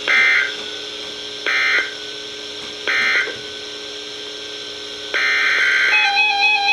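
Emergency Alert System end-of-message code: three short bursts of rapid two-pitch digital data tones, about a second and a half apart, marking the end of the alert. About five seconds in, a louder continuous sound with steady tones begins, running into music.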